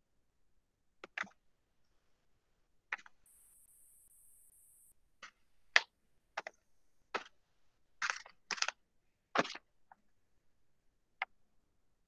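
Irregular clicks and taps at a computer desk, a dozen or so, clustered mostly in the second half, with the sharpest a little before and a little after the middle.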